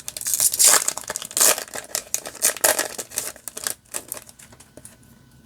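Foil wrapper of a Yu-Gi-Oh booster pack crinkling as it is handled, in a quick run of rustles that dies away about four seconds in.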